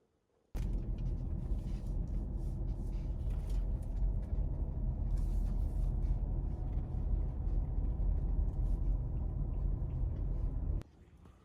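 Steady low rumble of a running road vehicle. It cuts in abruptly about half a second in and cuts off abruptly near the end.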